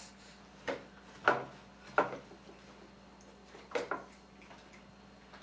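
A baby blowing raspberries, making farting noises with his mouth in four short bursts, the last after a longer pause.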